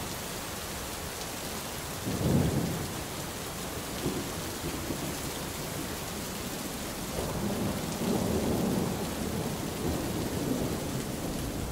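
Steady rain falling on the sea, a hiss throughout, with low rumbles of thunder about two seconds in and again later.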